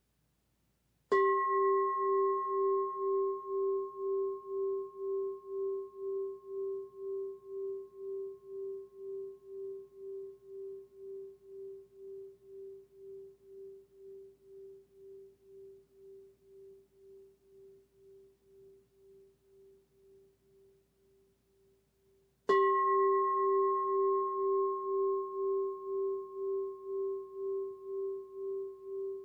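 A singing bowl struck twice, about twenty seconds apart; each strike rings on as a steady tone with a pulsing waver and fades slowly.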